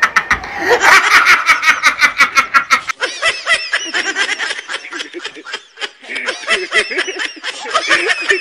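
A man laughing hard in rapid ha-ha pulses, about seven a second. About three seconds in the sound cuts abruptly to more laughter, looser and wavering in pitch.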